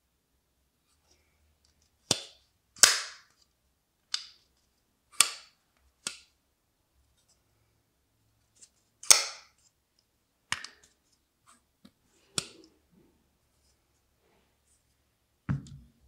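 Giant Mouse Jagt folding knife being worked by hand: a string of sharp metallic clicks, irregularly spaced, as the blade is opened and snapped shut. Near the end there is a duller knock as the knife is set down on the table.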